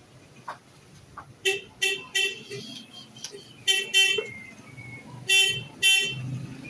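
A vehicle horn honking in short beeps, in three quick bursts of two to four toots each.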